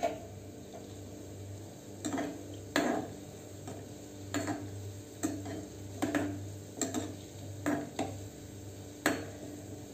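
Metal slotted spoon stirring gulab jamun balls in hot oil in a kadhai, scraping and tapping against the pan roughly once a second from about two seconds in, over a faint sizzle of frying on low heat.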